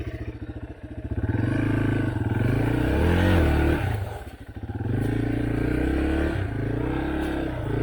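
Yamaha dirt bike engine pulling through deep snow, revving up and down with the throttle. It eases off briefly about a second in and again about four seconds in.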